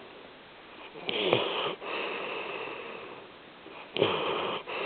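A sleeping pet snoring: two loud, rasping snores about three seconds apart, each followed by a longer, softer breath that fades away.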